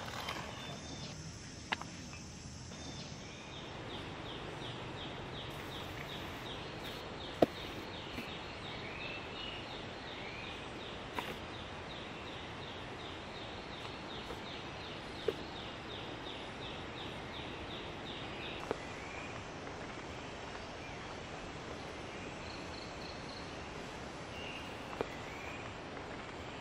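Steady outdoor background hiss with a high, evenly pulsing animal call of about three pulses a second that runs for some fifteen seconds and then stops, a few short chirps, and a handful of single sharp clicks, the loudest about seven seconds in.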